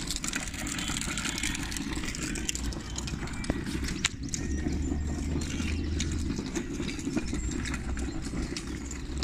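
Wind buffeting the microphone: a steady low rumble that swells in gusts, heaviest about halfway through.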